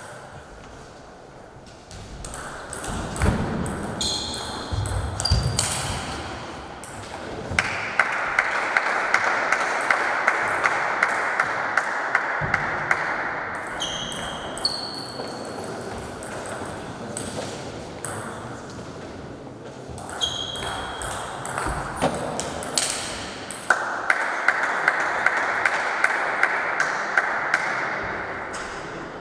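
Table tennis rallies: the plastic ball clicking off bats and table about three times a second in two long exchanges, one starting about eight seconds in and one near the end, echoing in the hall.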